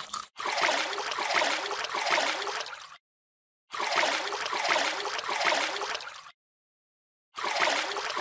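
Shallow water splashing and gurgling, in three separate runs of two to three seconds, each broken off by dead silence.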